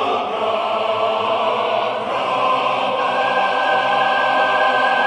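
Background soundtrack music: a choir singing long held chords, with a higher note coming in about three seconds in.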